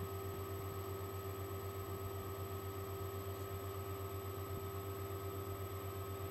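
Steady electrical mains hum: a low drone with an even, rapid flutter, with fainter high whines and a light hiss above it.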